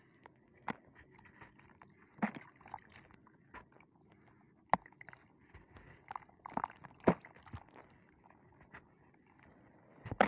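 Dry, crumbly block being squeezed and broken apart by hand over a basin of gritty water: a light, constant crackle of crumbling grit with scattered sharp crunches, the loudest about two, five and seven seconds in.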